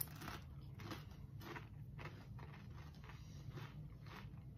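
Faint crunching of tortilla chips being chewed, about three crunches a second.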